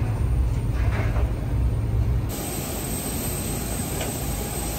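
Low, steady engine rumble of an airport apron bus heard from inside the cabin. About two seconds in it cuts abruptly to steady apron noise beside a parked jet airliner: an even hiss with a faint steady whine.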